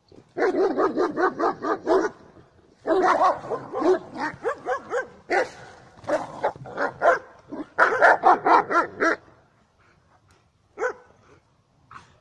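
German shepherd barking in four rapid bouts of about six barks a second, then two single barks near the end.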